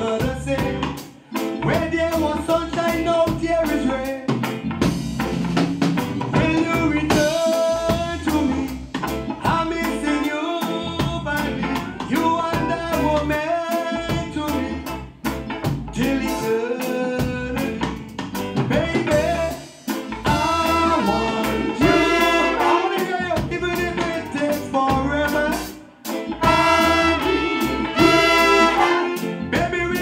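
A live band playing an upbeat Caribbean-style song, with drum kit, electric guitars, keyboards and saxophone behind a man singing lead into a microphone.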